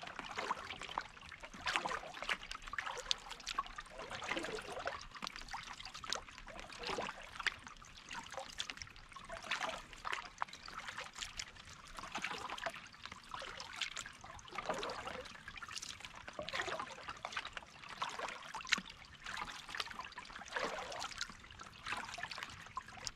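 A double-bladed paddle dipping into the water stroke after stroke, with water splashing and trickling off the blades in an uneven, repeating rhythm.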